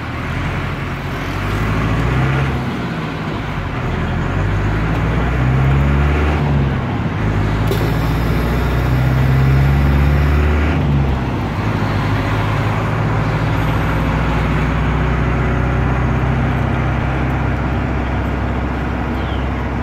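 Air-cooled Deutz F4L912 four-cylinder diesel of an Otokar M-2000 minibus, heard from the cab, pulling hard. Its note rises and drops twice as it works up through the manual gears, then holds steady at a cruise.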